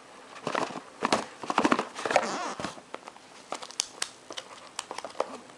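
A cardboard tablet box being opened by hand, with a paper leaflet handled inside: irregular rustling and scraping of cardboard and paper, then a string of light clicks and taps in the second half.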